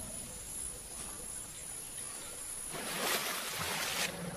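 Forest elephants in a clearing: a low rumbling undertone, with a loud rushing, breathy noise lasting just over a second about three seconds in.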